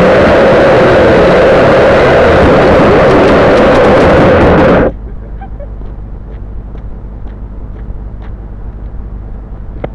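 Quadcopter motors and propellers buzzing loudly with a steady hum, close to the onboard camera's microphone, then cutting out abruptly about five seconds in as the quadcopter tumbles and comes to rest upside down. After that only faint scattered ticks remain.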